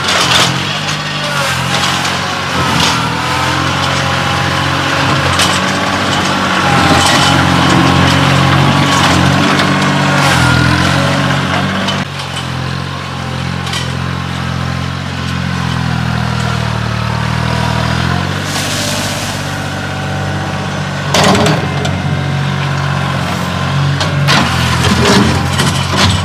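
Kioti CK2610 compact tractor's three-cylinder diesel engine running as it works the front loader, its pitch rising and falling with the throttle, with scattered sharp knocks.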